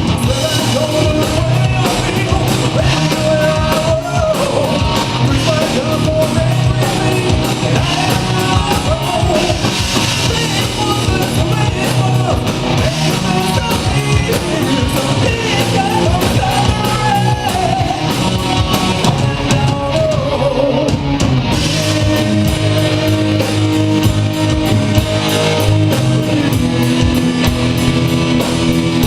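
Rock music: a band with drums and guitar playing under a sung vocal line.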